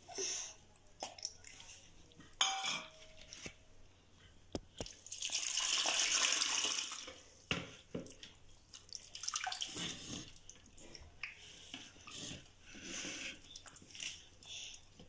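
Hands washing a ball of fresh homemade butter in water in a steel bowl, rinsing out the leftover milk before making ghee: a rush of pouring water for about two seconds near the middle, a single metallic clink of a steel vessel early on, and small splashes and sloshing as the butter is squeezed and kneaded in the water.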